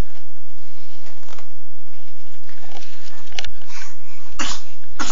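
A young baby's snuffly sniffs and sneezes: a few short, sharp bursts of breath in the second half.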